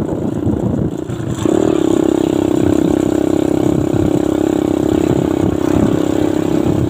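Engine of the vehicle the camera rides on: its note sags for about a second and a half, then picks up sharply and runs at a steady pitch under throttle.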